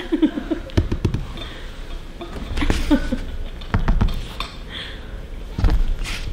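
Theatre audience laughing in scattered bursts, mixed with short wordless vocal sounds and several dull thumps from performers moving on the stage floor.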